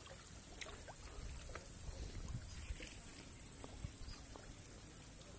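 Faint sloshing of water and rustling of water spinach stems as a person wades through a creek choked with the plants, with a few soft knocks.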